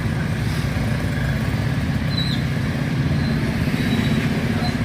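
Road vehicle engines running steadily at low revs, an even low rumble, with a couple of brief high chirps.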